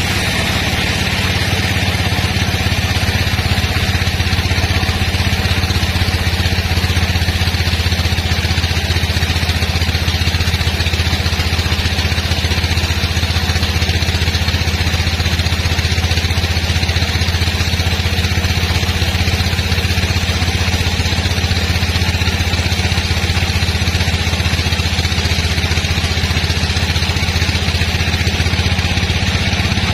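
Engine-driven sawmill running steadily: a constant low drone with a hiss above it, unchanging throughout.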